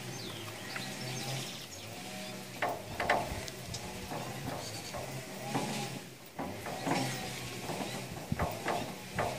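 Washing-machine drain pump running as a fountain pump with a steady mains hum, the hum briefly dropping out twice, while water sputters irregularly through the pipe as the pump works with little pressure.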